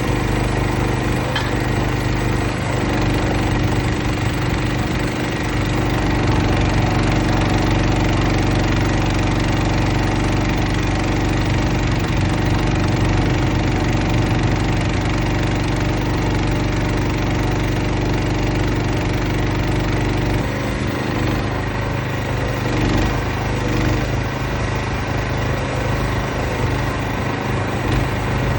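Mini excavator engine running steadily under hydraulic load while it drives a post hole auger, its note shifting and wavering about two-thirds of the way through.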